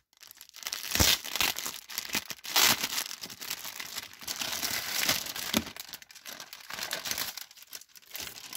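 Clear plastic magazine bag being torn open and pulled off, crinkling and tearing in a run of irregular bursts.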